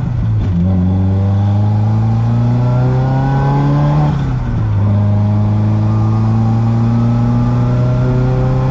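Nissan SR20DET turbocharged four-cylinder engine in an S14 pulling hard under acceleration. The revs climb steadily, drop at a gear change just after the start and again about four and a half seconds in, then climb again.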